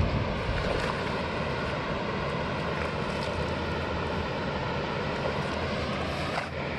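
Steady rushing background noise with a faint hum through it. A hooked fish splashes at the water's surface near the end.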